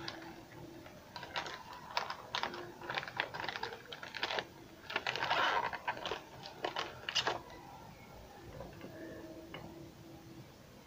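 Hand-handling noise: a quick, irregular run of light clicks and taps, with a brief rustle about five seconds in, dying away after about seven seconds.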